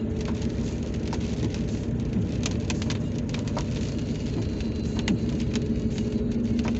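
Steady engine and road noise of a moving car heard from inside the cabin, with raindrops ticking irregularly on the car.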